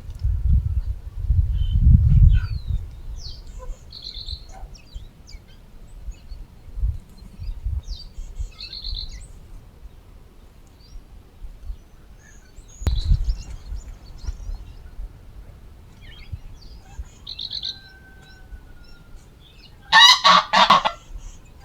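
Small birds chirping now and then, and about twenty seconds in a loud call from domestic fowl, a quick run of several notes over about a second. A few low thumps in the first couple of seconds.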